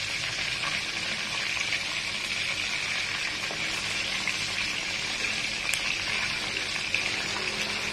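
Silkie black chicken and garlic frying in hot oil in a wok: a steady sizzle that holds even throughout.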